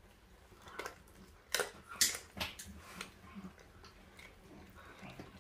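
A dog chewing and crunching on a raw duck carcass: irregular wet bites and cracks of bone, the loudest about one and a half to two and a half seconds in.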